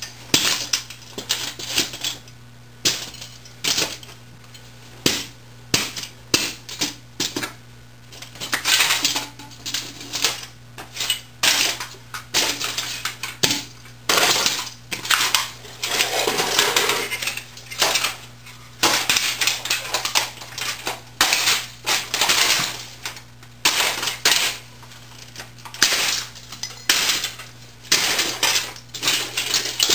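Wesco leather boots stomping and grinding on a broken 1980s word processor: irregular heavy impacts with plastic crunching and metal parts clattering and clinking on concrete, coming in quick runs.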